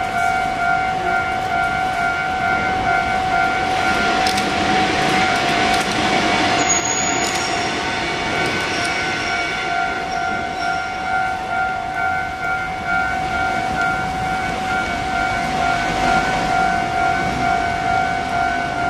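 Railway level-crossing warning signal ringing steadily as a Kotoden train approaches the street crossing, one unbroken pitched tone with overtones. A louder rush of noise swells between about four and seven seconds in and again near the end.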